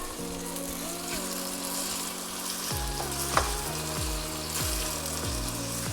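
Thinly sliced onions sizzling as they fry in hot oil, freshly salted to draw out their water so they brown quickly. Background music with a low, steady beat joins about halfway through.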